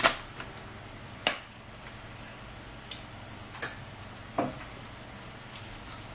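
About five separate sharp clicks and taps from small objects being handled at a dining table, the loudest right at the start, over a faint steady low hum.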